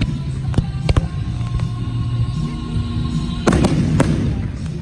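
Fireworks going off at close range: a few sharp bangs in the first second, then a dense cluster of bangs with crackling about three and a half seconds in, over music playing.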